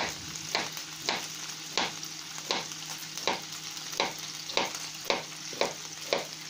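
Pork pieces sizzling steadily in a frying pan, with a knife chopping a raw potato into chunks on a plate: a sharp tap of the blade on the plate about every two-thirds of a second.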